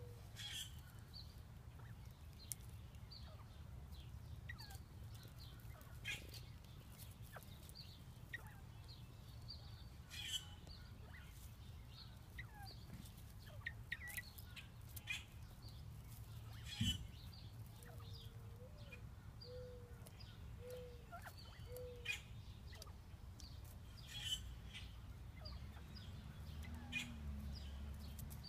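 Northern bobwhite quail calling softly: a run of four short, low notes about two-thirds of the way through, among faint high peeps and scattered light clicks from the birds foraging in wood shavings.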